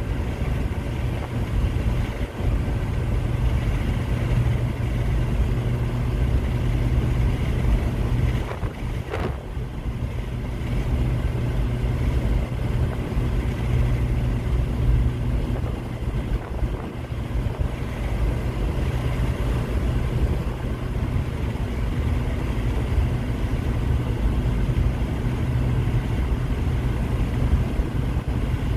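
Volkswagen Eurovan cruising at highway speed, heard from inside the cabin: a steady low drone of engine and road noise with a constant hum running under it.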